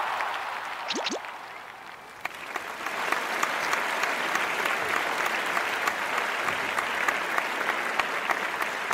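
Audience applauding, with many individual claps. The applause dips in the first two seconds, then swells up again and runs steadily.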